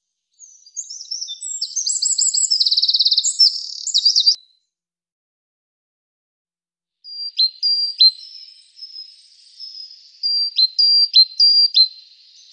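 Eurasian wren singing one loud, rapid song of trills lasting about four seconds. After a pause, a great tit sings repeated short high phrases.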